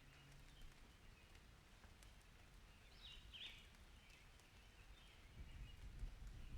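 Quiet outdoor ambience with a few short bird chirps about three seconds in, then a low rumble of distant thunder building near the end.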